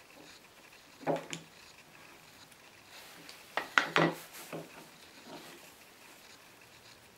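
Wooden knocks and clatter from an antique wooden plough plane being taken apart on a wooden workbench. There is a knock about a second in, then a quick cluster of louder knocks a little before the middle as the fence is set down, then a few softer knocks.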